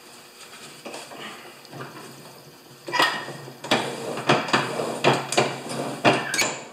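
Metal clinks and knocks from a Toro snowblower's friction drive wheel and drive plate being wiped down with a rag. Faint rubbing at first, then a quick run of sharp clatters from about halfway in.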